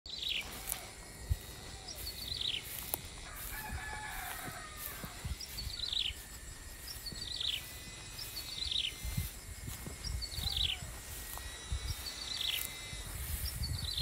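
Outdoor birdsong: a small bird repeats a short, high, descending call about every second and a half. A rooster crows once, about three seconds in, and a steady thin high tone runs underneath.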